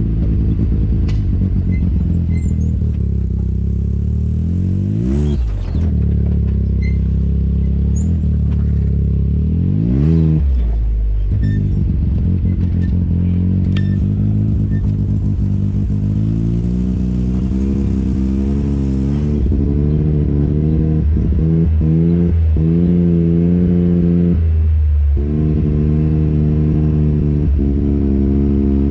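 Off-road vehicle engine running steadily along a rough dirt trail. The engine note drops and climbs back up about five seconds in and again about ten seconds in, then holds fairly even with small wavers in the revs.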